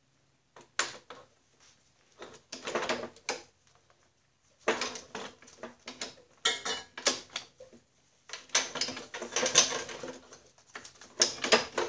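Irregular clattering, clicking and scraping of metal parts being handled in several bursts as a shaft fitted with new rubber bellows boots is worked back through a Snapper rear-engine rider's frame.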